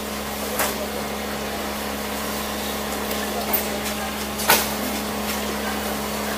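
Street-market ambience: a steady background din of distant voices and traffic with a constant low hum. A few sharp knocks sound through it, the loudest about four and a half seconds in.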